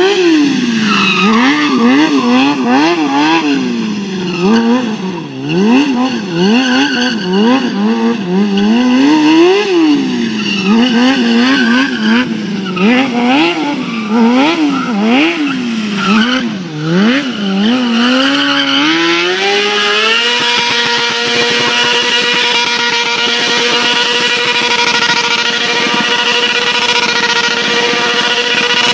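Motorcycle engine revved up and down again and again as the bike slides through drifts. About 18 seconds in, the revs climb and then hold steady and high while the rear tyre spins in a smoky burnout, with tyre squeal.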